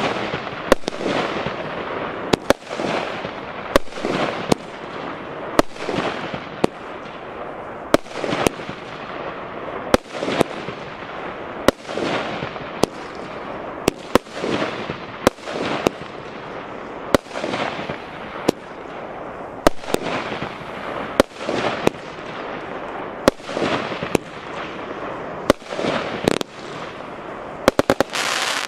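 Piromax STAR 20-shot consumer firework cake firing its shots one after another, roughly one sharp bang a second, each followed by a fading crackle from the bursting stars. Near the end several bangs come in quick succession.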